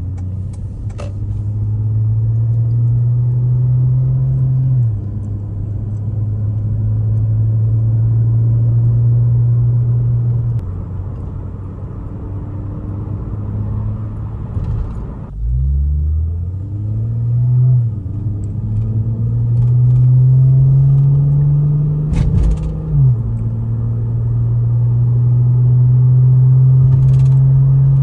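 The exhaust note of a 2007 Lincoln MKZ's 3.5-litre V6 through Flowmaster Delta Flow 40 Series mufflers, heard from inside the cabin with the windows up, as the car drives and accelerates. The engine pitch rises and then drops back at each upshift of the automatic, and eases off briefly about halfway through before climbing again.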